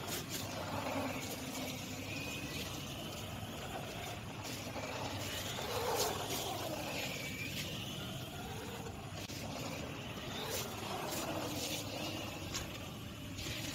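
HSP 94701 Wolverine Pro 1/10 RC monster truck driving on a wet court. Its brushless motor whine rises and falls as it speeds up and slows, over a steady hiss of tyres on wet pavement, with a few sharp clicks.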